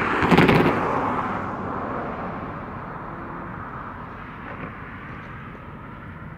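A road vehicle passing by, loudest at the start and fading steadily away, with a short burst of thuds about half a second in.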